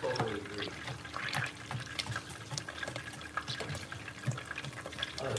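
Kitchen knife chopping garlic on a cutting board: short, irregular taps of the blade on the board, several a second, over a steady low hiss.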